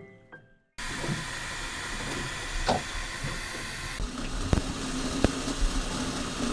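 Music ends abruptly under a second in, then a metal kettle steams with a steady hiss. A few light knocks sound in the hiss, and a low steady hum joins about four seconds in.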